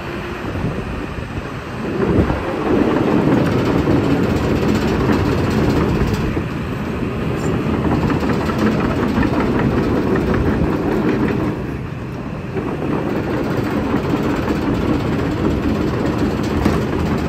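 Hitachi Zaxis 300 excavator tracking, its steel tracks clattering over the steady running of its Isuzu diesel engine, getting louder about two seconds in.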